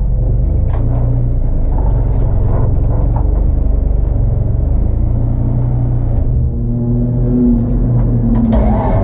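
Race car engine running under load, heard from onboard, its note shifting up and down with throttle and gears. Its pitch climbs in the second half.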